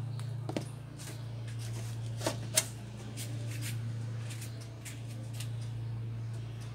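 A few light clicks and ticks from hands handling the plastic reflector sheet on an LED TV backlight panel, the sharpest about half a second in and around two and a half seconds in, over a steady low hum.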